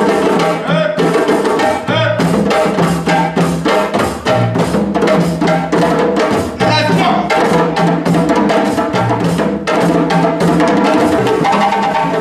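A group of djembes played together by hand, sharp slaps and deeper tones interlocking in a dense, steady rhythm.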